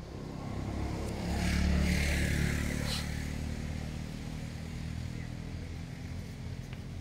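A motor vehicle engine going past, growing louder to a peak about two seconds in and then slowly fading.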